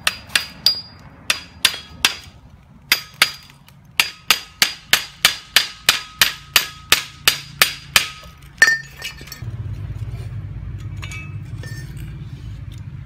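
Hand hammering, metal striking metal: about two dozen sharp, ringing clinks, spaced irregularly at first, then a quick even run of about three blows a second that stops a little before the nine-second mark. After the blows stop, a low steady rumble sets in.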